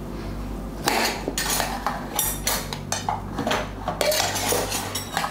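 Clinking and clattering of steel kitchenware as boiled, peeled tapioca pieces are put into a mixer-grinder jar: a string of short, irregular knocks and clinks starting about a second in.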